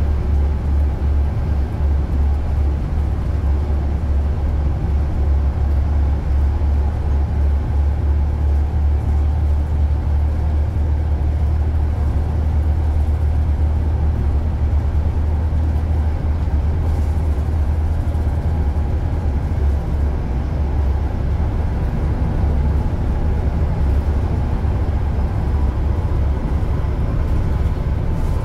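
Car driving through city streets: a steady, deep rumble of engine and road noise.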